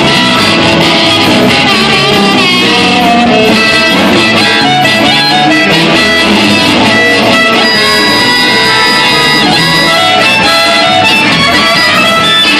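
Live blues band playing: trumpet and harmonica over electric guitar, electric bass and drums.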